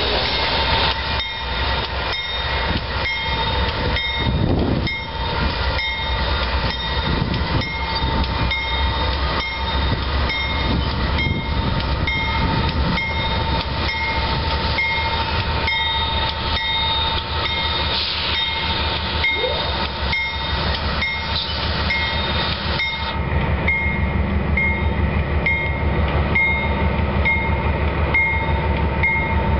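Freight train running by with a low rumble and wheel clatter, while a railroad crossing bell rings steadily at about one and a half strikes a second. In the last several seconds the low rumble grows louder as Union Pacific diesel locomotives approach.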